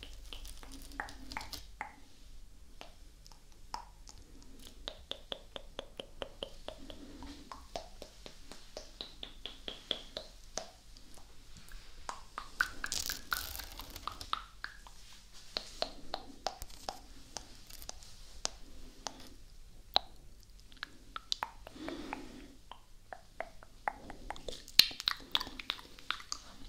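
Close-miked ASMR mouth sounds: wet tongue clicks, lip smacks and pops in quick irregular runs, with the loudest pop near the end.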